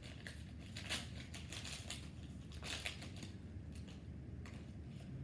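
Foil wrapper of a trading-card pack being torn open and handled, with irregular crinkling and crackling.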